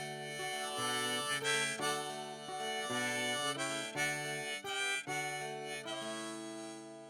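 Harmonica playing a melody over acoustic guitar, settling near the end into a held chord that fades.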